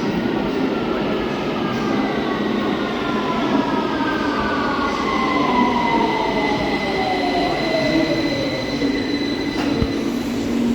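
London Underground 2009 Stock (Bombardier Movia) train slowing down. The whine of its traction motors falls steadily in pitch as it brakes, and a steady high whine joins in about halfway through.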